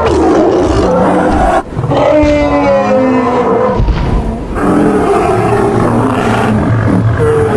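Layered animal roars and bellows from a sound-effect mix of Ice Age megafauna. A short break comes about one and a half seconds in. After it, a pitched call glides up and down for about two seconds. Near the middle a low steady hum sets in under further roaring.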